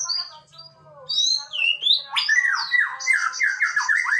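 Male white-rumped shama singing: loud whistled notes and glides, then, about halfway through, a fast run of repeated downward-sliding notes.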